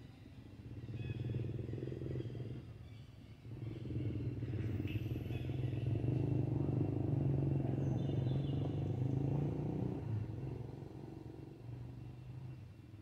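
Motor vehicle engine passing by off-screen: a low hum that swells briefly, dips, then builds again, holds for several seconds and fades away near the end.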